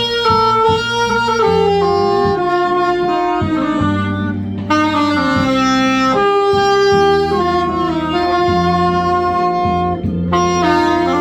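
Saxophone playing a slow melody of long, sliding notes over a steady backing accompaniment.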